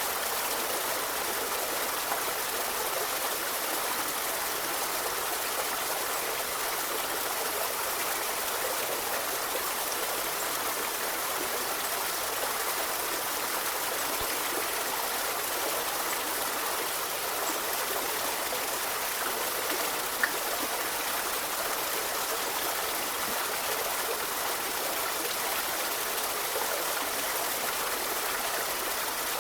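Forest river running steadily, an even rush of flowing water.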